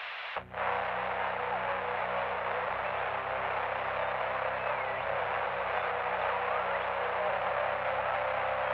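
Steady static-like hiss with a low droning hum beneath it, starting after a brief dropout about half a second in.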